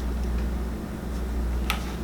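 Steady low hum with one sharp click near the end from a hand tool working on wire, as the ends of a controller's lead wire are cut and stripped.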